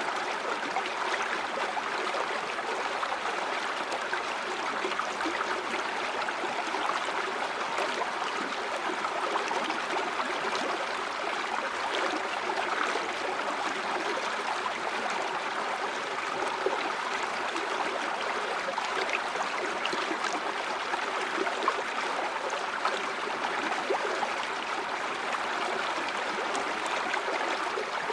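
Steady flowing stream water, rushing and babbling evenly over rocks with small splashes throughout.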